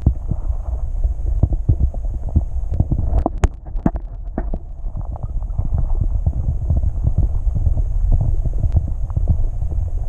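Wind buffeting the microphone outdoors: a loud, irregular low rumble full of soft thumps, with a few sharper knocks about three to four and a half seconds in.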